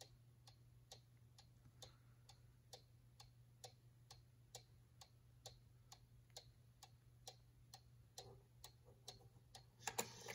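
A hand-carved mechanical cuckoo clock ticking: the pendulum escapement gives a faint, steady tick about twice a second.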